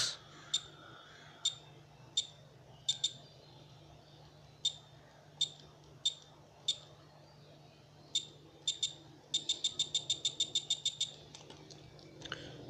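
Buzzer of a homemade TSOP 1738 infrared receiver circuit giving short high-pitched beeps, each set off when the detector picks up the infrared signal from a TV remote's button press. Scattered single beeps come first, then a rapid run of about seven beeps a second near the end.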